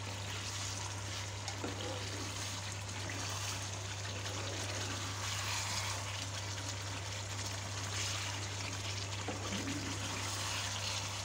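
Chicken korma gravy sizzling steadily in a nonstick pan as it is fried and stirred with a spatula, the yogurt's water cooked off so the masala is now frying in its oil.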